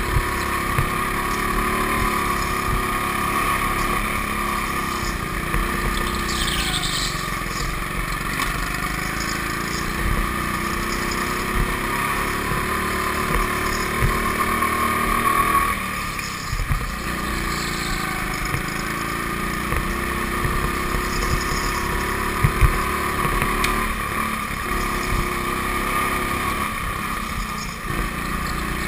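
Go-kart engine running under throttle, heard from on board the kart, its pitch rising and falling as it drives the laps. It eases off briefly about halfway through, then picks up again.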